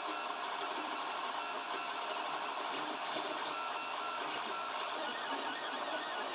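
3D printer mid-print: its stepper motors, driving the print head and the belt-drive Bowden filament feeder, give short whining tones that keep changing pitch over a steady hiss.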